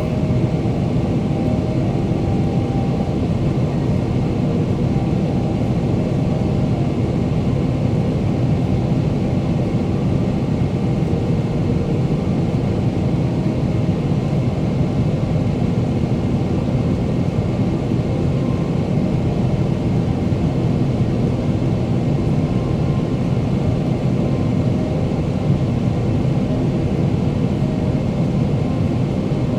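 Steady cabin noise inside a Boeing 777-300ER in flight, heard from a window seat: an even rush of airflow and GE90 engine noise with a low hum, unchanging throughout.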